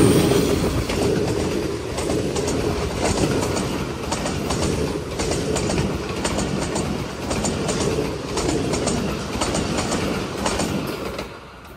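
Diesel-hauled passenger train passing close at speed: the locomotive rumbles by first, then the coaches, their wheels clicking rhythmically over the rail joints. The sound falls away sharply near the end.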